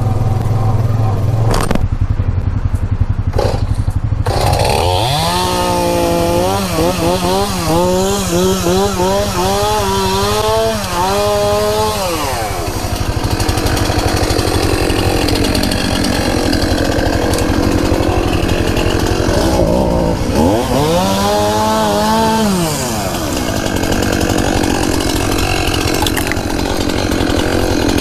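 Chainsaw cutting through downed wood: it idles, revs up about four seconds in and holds at full speed with its pitch wavering as it bites for around eight seconds, then drops back. A second, shorter rev rises and falls about twenty seconds in.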